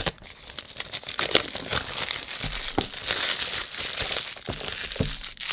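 Plastic shrink-wrap being pulled off a phone's retail box and crumpled: a continuous crinkling dotted with sharp crackles.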